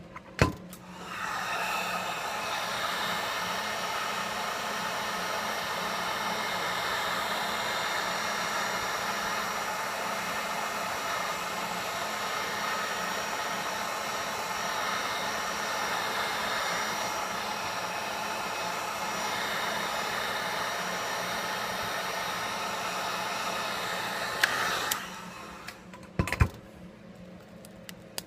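A heat gun blows steadily, switched on about a second in and off about 25 seconds in, heating the phone to soften the adhesive that holds the screen. A sharp click comes just before it starts, and a few clicks come after it stops.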